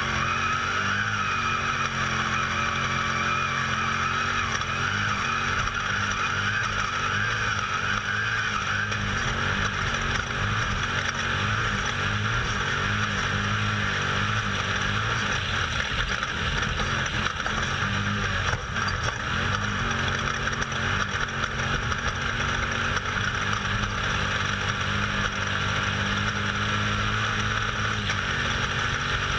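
Off-road race vehicle's engine running hard at speed, its revs rising and falling, under a steady rushing noise, heard on board.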